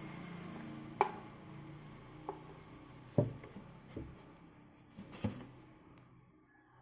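About six sharp knocks and clicks of hard objects being handled, spread irregularly over a low steady hum that slowly fades away.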